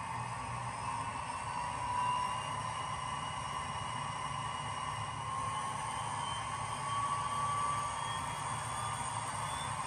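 Sound decoder in a model Class 57 diesel locomotive playing its diesel engine sound through the model's small speaker, a steady drone with slight swells about two seconds and seven seconds in.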